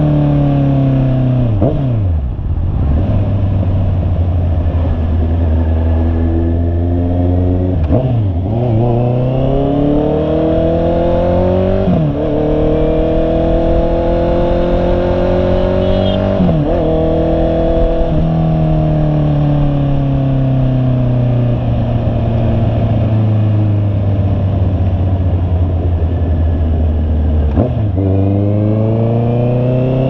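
Honda CB650R's inline-four engine running under way: its note climbs under throttle and drops sharply at each gear change, several times, then eases off and climbs again near the end. A steady rush of wind and road noise runs underneath.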